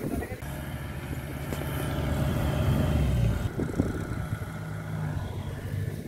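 Farm machinery engine running steadily with a low hum. It grows louder about two seconds in and eases back a little after three seconds.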